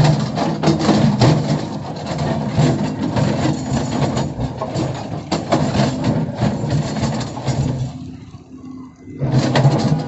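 Tracked hydraulic excavator's diesel engine working under load as the bucket digs in a trench, with frequent scraping and clunks of soil and stones. The engine eases off about eight seconds in and picks up again loudly near the end.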